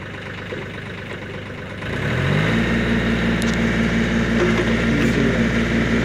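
John Deere 2520 compact tractor's 27 hp Yanmar diesel engine idling, then throttled up about two seconds in and held at a steady higher speed to power the backhoe's hydraulics for digging.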